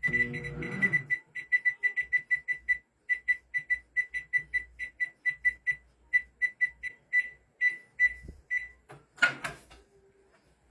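Microwave oven's electronic buzzer beeping rapidly and repeatedly, short high beeps at about five a second in runs with brief gaps, stopping near the end. A short, louder, rougher sound follows just after the beeps stop.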